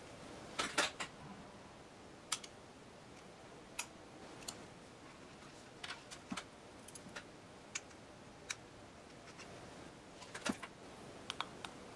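Faint, irregular small clicks and taps as a Casio F-108WHC watch module's plastic frame and metal clips are handled, with a loudest cluster about a second in and another near the end.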